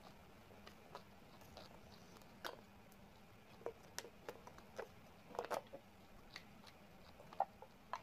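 Quiet eating sounds: scattered soft mouth clicks and smacks of someone chewing food, with a small cluster past the middle and a sharper click near the end.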